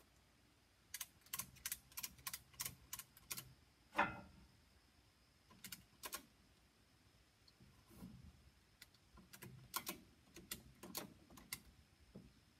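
Ratchet strap being cranked tight, its ratchet clicking in several quick runs of sharp clicks. About four seconds in comes one louder, short sound that falls in pitch.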